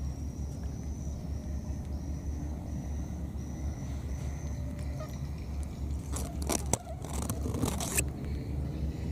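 A small engine running steadily with a low, evenly pulsing rumble, with a faint high whine that fades out about four and a half seconds in. Between about six and eight seconds in comes a cluster of sharp scraping and rustling noises.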